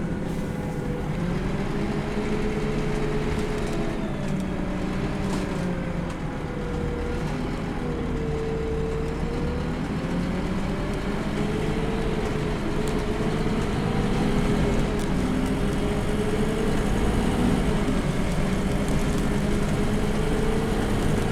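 Onboard sound of a Scania K230UB bus under way: its 8.9-litre Scania DC9 five-cylinder diesel and ZF Ecomat automatic driveline droning steadily. A tone in the drone drifts gently up and down in pitch as engine speed changes, and it grows slightly louder in the second half.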